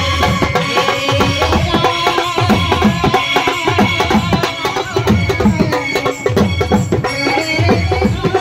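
Street procession band playing: bass drums and side drums beat a steady rhythm of about two heavy beats a second, with a melody carried over them.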